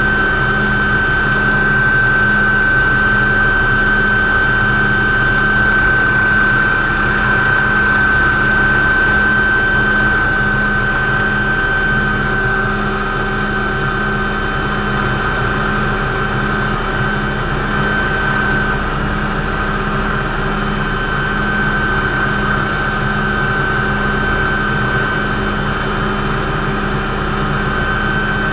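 McDonnell Douglas MD500C (Hughes 369HS) helicopter flying low and slow, heard from inside the cockpit: a steady high turbine whine over the constant drone of the engine and rotor.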